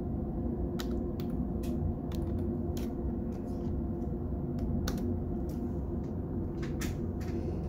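A steady low hum, with about a dozen scattered, irregular clicks of a computer keyboard over it.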